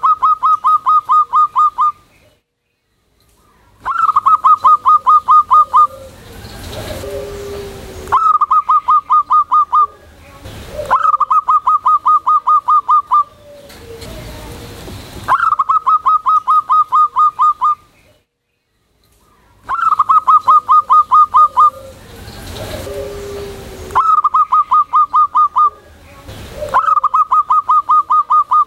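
Zebra dove (perkutut) singing its loud staccato cooing song. About eight bursts of a dozen or so rapid notes at one pitch, each burst about two seconds long, repeat every three to four seconds, with softer lower notes between the bursts.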